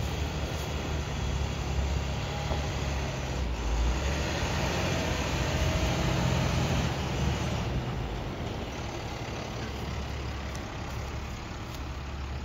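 Diesel engine of a 2007 International bucket truck, a 7.6-litre International DT466, running at low speed as the truck drives slowly across gravel, with tyre noise. The engine gets louder about four seconds in and eases off again after about eight seconds.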